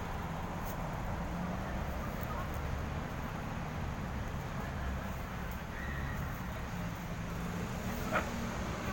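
Steady low outdoor rumble, like distant traffic, with one short sharp sound about eight seconds in.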